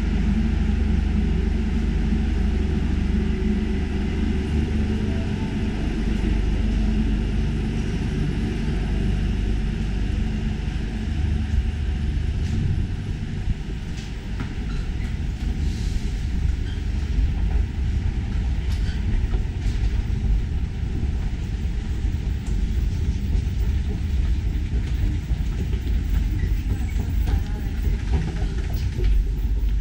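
Steady low rumble of an underground metro station, with a few faint clicks.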